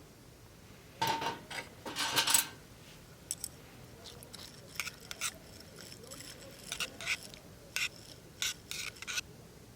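Metal utensils and cookware clinking and scraping: a short clatter about a second in, then a string of light separate clinks.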